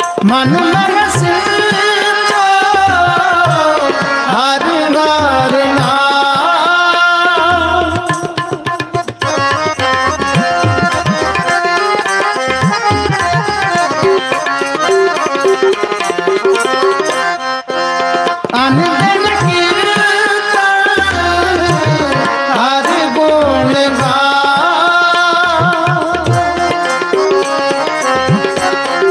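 Sikh kirtan: tabla playing a steady rhythm under harmonium accompaniment. A singer's voice carries long gliding phrases for the first several seconds and again from about two-thirds through, with harmonium and tabla alone in between.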